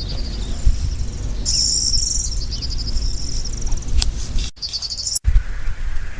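Eurasian skylark singing: bursts of rapid, high trilling notes over a low rumble, with the sound cutting out briefly twice near the end.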